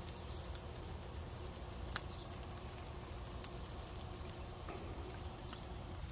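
Pork steaks sizzling over high heat, with scattered small crackles and pops from the fat, and two sharper ticks about two and three and a half seconds in, over a steady low rumble.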